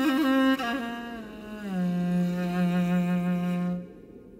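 Background music: a single melodic line that wavers at first, glides down to a long held low note, and breaks off briefly near the end.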